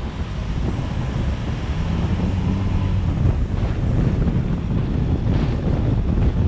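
Wind buffeting the microphone of a camera on a moving vehicle, over a low road and engine rumble. It gets a little louder over the first couple of seconds.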